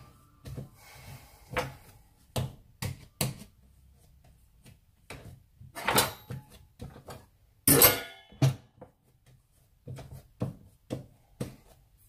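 Bread dough being kneaded by hand on a wooden chopping board: a run of irregular thumps and slaps as it is pressed and folded, the loudest two about six and eight seconds in.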